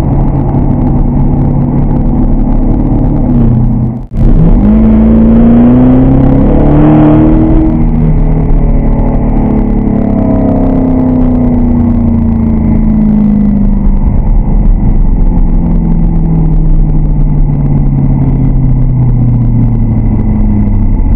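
Porsche Cayenne Turbo's 4.8-litre twin-turbo V8 under way. After a brief drop-out about four seconds in, the engine note climbs for a few seconds as it pulls, then falls slowly as the car eases off and slows.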